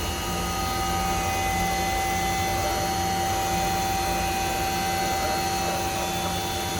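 Okuma 5-axis CNC machining centre running, with a steady spindle whine made of several held tones over a low hum that pulses on and off less than a second apart. A new steady tone comes in just after the start.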